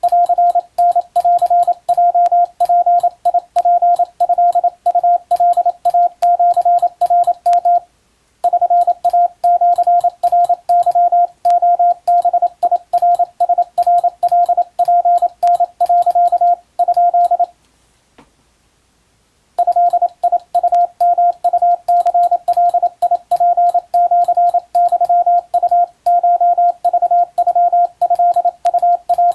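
Morse code sidetone near 700 Hz, keyed on and off in quick dots and dashes as a Japanese wabun telegram is sent, with a faint click at each keying. It breaks briefly about eight seconds in and pauses for about two seconds past the middle before the sending resumes.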